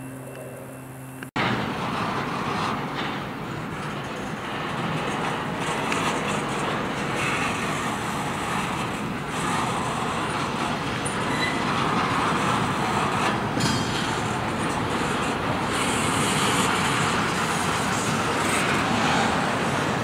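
Double-stack intermodal freight train's loaded well cars rolling past close by, a steady rumble and clatter of steel wheels on the rails. It opens with a brief low steady hum that cuts off abruptly just over a second in, where the louder rolling noise begins.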